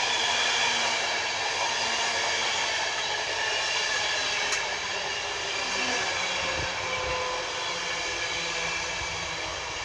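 LNER InterCity 225 train, driving van trailer 82205 leading and a Class 91 electric locomotive at the rear, running into the station to stop: a steady rumble with a steady high whine over it, easing off slightly as it slows.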